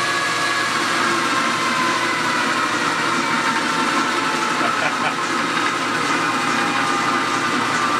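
South Bend Heavy 13 metal lathe running under a heavy 0.050-inch turning cut, the spindle drive and tool giving a steady mechanical whine. Its pitch sags slightly as the machine bogs down a little under the load.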